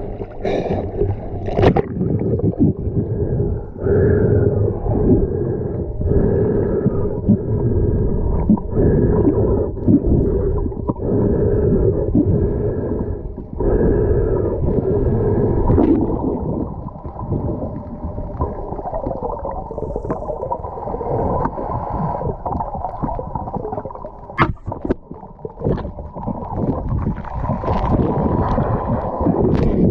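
Muffled underwater sound through a camera's waterproof housing during a freedive: rushing, gurgling water with a hum that swells and fades about once a second, and a few sharp clicks in the second half.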